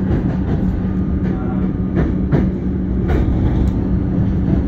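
Inside a moving electric suburban train: a steady running rumble and hum, with the wheels clacking several times over rail joints and points.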